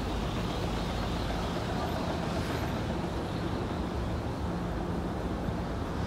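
Steady city traffic noise: a continuous hum of road vehicles with a faint steady engine tone underneath.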